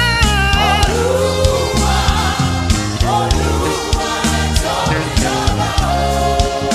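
Gospel worship music: held, wavering sung notes over a steady bass and a regular drum beat.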